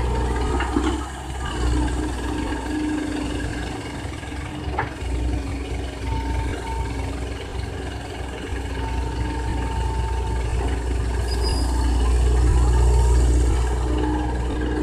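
Komatsu PC130 excavator's diesel engine running steadily, with a whine that comes and goes and a single sharp click about five seconds in; it grows louder for a second or two near the end.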